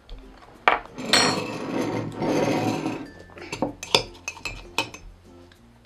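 Spoons scraping and stirring shaved ice in ceramic mugs, with several sharp clinks of spoon against mug.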